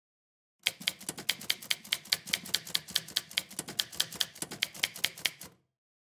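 Typewriter keys striking one after another at an even pace, about five a second, starting just under a second in and stopping abruptly near the end.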